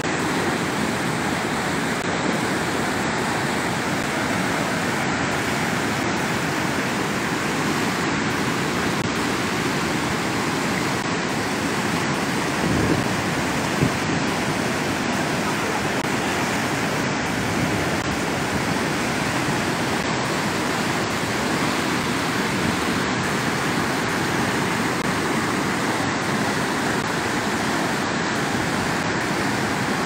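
Swollen river in flood, muddy water rushing and churning through rapids and standing waves: a loud, steady rushing noise.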